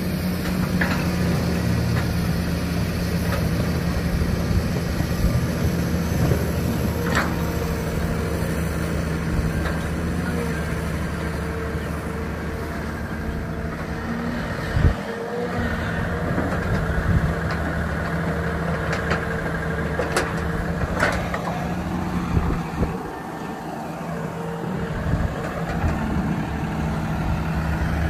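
Tracked excavator's diesel engine running steadily during site clearing, with a few sharp knocks and clanks from the machine's work now and then.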